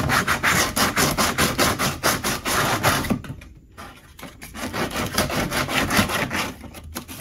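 Folded 100-grit sandpaper rubbed by hand back and forth along the cut plastic edge of a kayak's hatch hole, in quick scratchy strokes about five a second. The sanding pauses briefly about three seconds in, then starts again. It is smoothing the freshly cut opening, taking off the ridge of melted plastic left by the hot knife.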